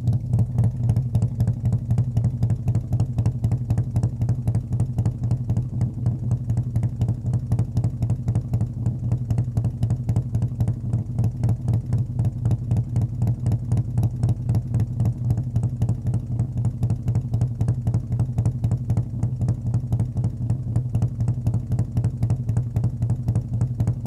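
Motorcycle engine running at a steady idle, its exhaust pulsing evenly and fast with a deep low note.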